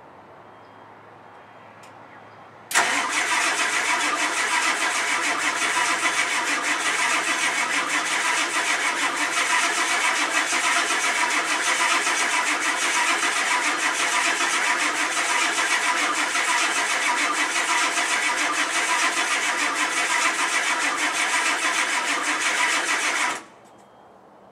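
Starter cranking the cold 7.3-litre IDI V8 diesel of a 1991 Ford F-250 for about twenty seconds without it catching, starting suddenly and cutting off abruptly: a failed cold start.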